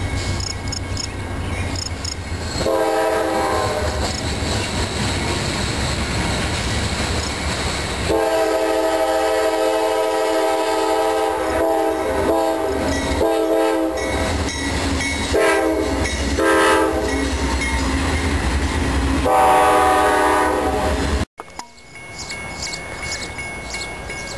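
Diesel locomotive approaching and sounding its air horn in a series of long and short blasts over the low rumble of the train. Near the end the sound cuts out briefly, and only a distant, quieter train rumble follows.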